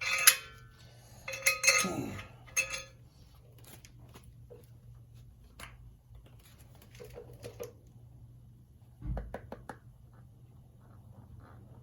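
Loose steel parts and hand tools clinking and clanking against metal: a few sharp clinks with a short ring in the first three seconds, then lighter handling clicks and a couple of dull knocks about nine seconds in.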